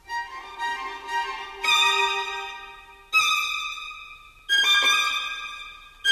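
Background music: a slow melody of long held notes. A new note starts about every one to one and a half seconds and fades away before the next.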